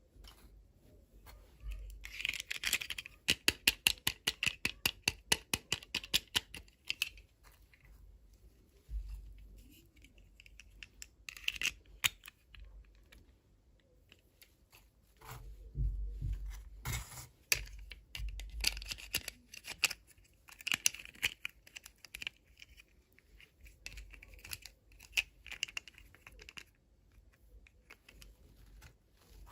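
Toy packaging being handled and torn open, with rustling, tearing and a quick run of sharp clicks a couple of seconds in, then more bursts of rustling and clicks later on.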